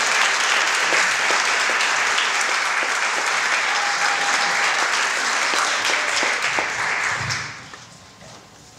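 Audience clapping and applauding, dying away about seven seconds in.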